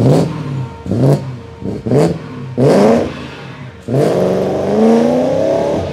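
G-Power centrifugal-supercharged BMW M3 E92 V8 blipped in four short revs, then pulled up in one longer rising rev over the last two seconds. A short hiss from the supercharger's blow-off valve comes at the top of each blip.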